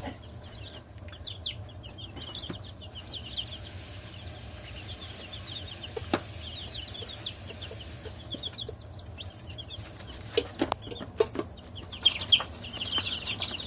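Chicks peeping in rapid runs of short, high, falling notes over a steady high hiss, with a few sharp knocks or wing flaps about ten seconds in.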